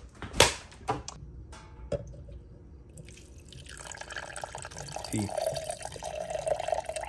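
A cooked mango and habanero mixture being poured from a pan into a plastic blender jar, a steady splashing pour that starts about four seconds in. A few sharp knocks of handling come before it, the loudest near the start.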